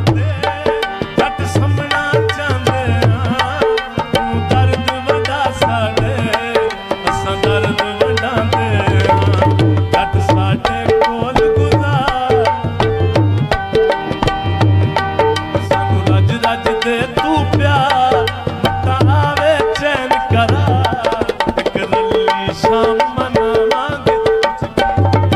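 Instrumental passage of Punjabi folk music: hand drums keep a steady repeating rhythm under a melody instrument, with no singing.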